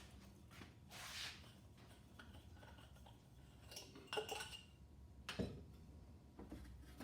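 Metal tools and parts being handled on a workbench: a soft rustle about a second in, a clatter of metal clinks with a brief ring about four seconds in, and a single knock a second later.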